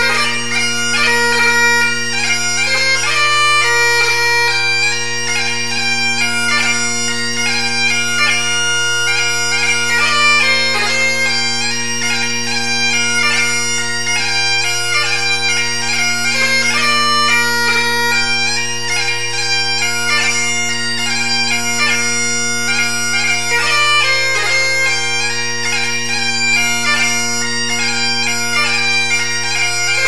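Bagpipe music: a quick tune on the chanter over steady, unchanging drones.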